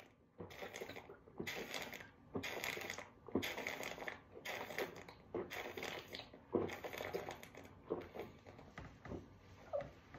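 A man chugging a bottle of beer: a steady run of gulps, a little over one a second.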